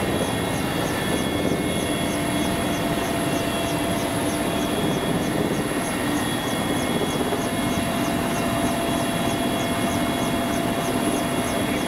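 Military helicopter in flight, its engines and rotors running steadily, heard from inside the cabin with the side door open. A faint, fast, high-pitched ticking runs through the steady noise.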